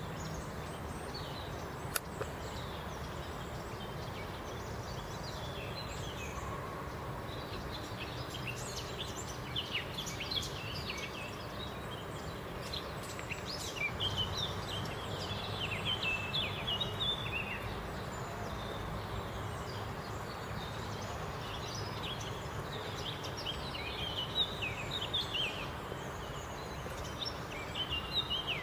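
Songbirds chirping and twittering in quick runs of short calls over a steady outdoor background hiss, busiest around the middle and again near the end. A single sharp click about two seconds in.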